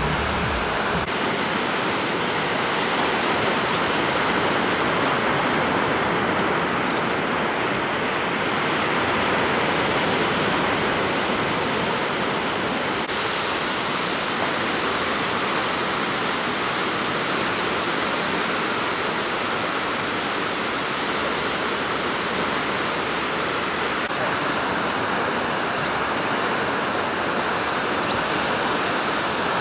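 Ocean surf breaking and washing up a sandy beach: a steady rush that swells and eases gently.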